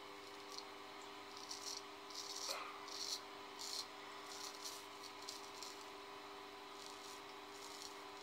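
Straight razor scraping through lathered stubble in a series of short, irregular strokes, each a brief rasp, over a faint steady hum.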